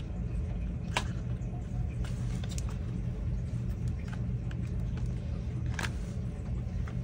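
A few small sharp clicks and light scrapes as fingers work a laptop's battery cable connector into its socket on the motherboard, the clearest about a second in and near six seconds, over a steady low hum.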